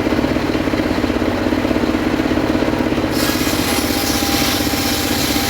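Engine of a homemade circular sawmill running steadily with a fast, even pulsing beat. About three seconds in a loud hissing rush joins it, as the saw blade cuts into sengon wood.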